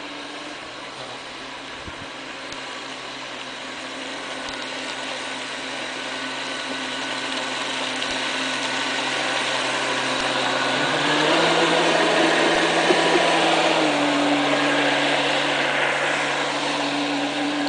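Radio-controlled model boat running on the water: a steady motor hum over the hiss of hull and spray, growing louder as the boat comes closer. The motor's pitch steps up about eleven seconds in and eases back a few seconds later.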